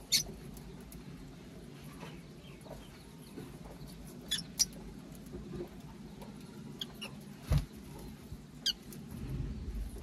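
Lovebirds and budgerigars giving short, sharp, high chirps and squeaks every so often, seven or so in all, over a low steady rumble, with one dull thump about three-quarters of the way through.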